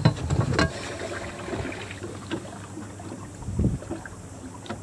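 Camera handling noise in a small fishing boat: fabric rubbing and brushing against the microphone, with a few light knocks in the first second, over a faint low steady hum.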